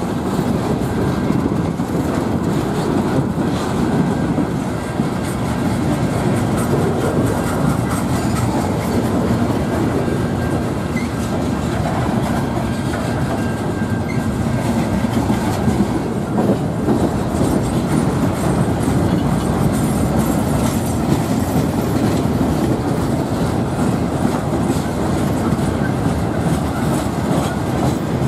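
Freight train of boxcars rolling steadily past up close: a loud, continuous rumble with the clickety-clack of steel wheels over the rail joints.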